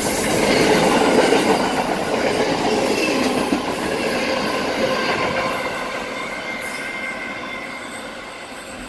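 Container freight train's wagons rolling past on the rails, a dense clatter of steel wheels with a thin squeal at times, fading as the end of the train passes and moves away.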